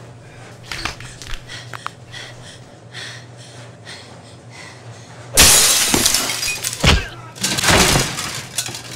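Dishes, glass and kitchenware crashing and shattering as they are knocked off a kitchen counter. A sudden loud crash comes about five seconds in, after faint knocks, and is followed by another hit and more clattering.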